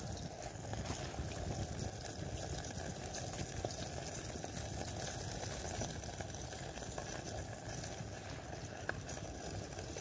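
Burgers and onions frying in oil in a pan on a small wood-burning stove, a steady sizzle.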